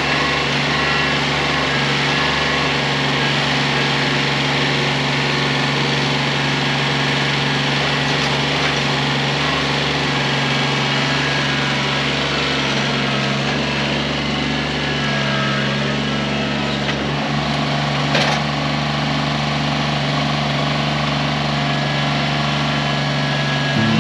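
Small engine running steadily at high speed, its pitch shifting slightly near the end.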